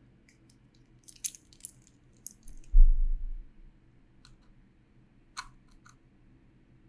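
A few scattered sharp clicks and one dull low thump about three seconds in, from handling a keyboard and computer on a desk.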